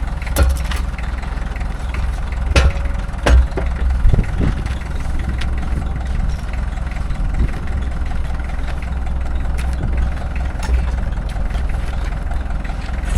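Tractor engine running at a steady idle, with a few sharp metal knocks in the first several seconds.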